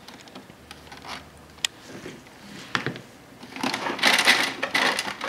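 Plastic inkjet printer being handled and shifted on a desk: a few light clicks and knocks, then scraping and rustling from about three and a half seconds in as it is gripped and turned.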